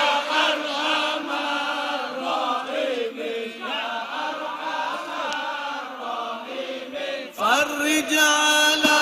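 Men's voices chanting an Arabic sholawat, a devotional song in praise of the Prophet, drawn-out and melodic in unison. The singing swells louder about seven and a half seconds in.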